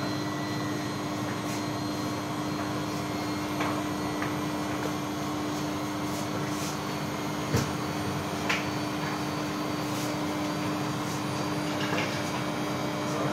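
Beko front-loading washing machine running on its spin cycle: a steady, even whirr with a constant hum. A few light clicks sound over it, the sharpest about seven and a half seconds in.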